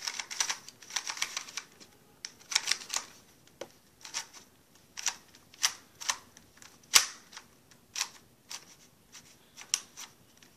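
An older, stiff plastic Rubik's Cube being twisted by hand, its layers turning with irregular sharp clicks and clacks. The cube is hard to turn and really slow moving.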